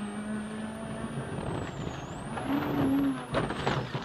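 Onboard a rally car, the engine runs steadily. Then a rising rush of noise and a brief engine rev come as the car slides on the wet road. Near the end it crashes off the road into bushes with a quick series of thuds and bangs.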